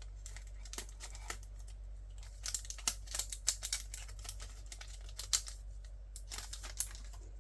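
Photocards and their plastic packaging being handled: light rustling and crinkling with scattered clicks and taps, busiest in the middle and again near the end.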